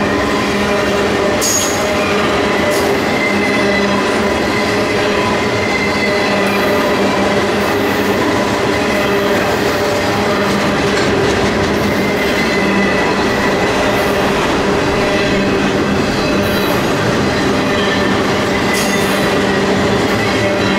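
Cars of a long intermodal freight train rolling steadily past: steel wheels on rail, with a steady squeal from the wheels and a few short clicks.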